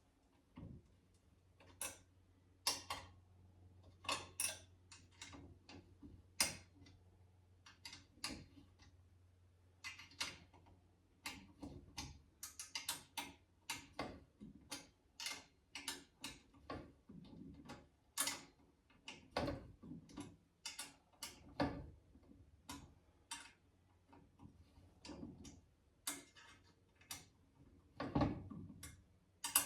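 Irregular clicks, clinks and light knocks of chain grinder stand parts and bolts being handled and fitted together, sometimes several a second, with a faint low hum under the first ten seconds or so.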